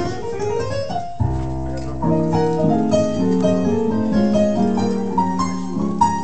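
Stage keyboard played in a piano voice: full chords with a deep bass note coming in about a second in, moving through changing harmonies with a melody line on top.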